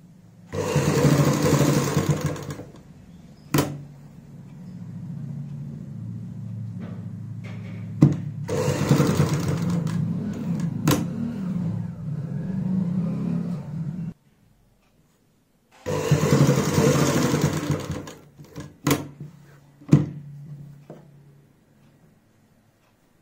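Domestic sewing machine stitching in three runs of a few seconds each, stopping between them, with a few sharp clicks in the pauses.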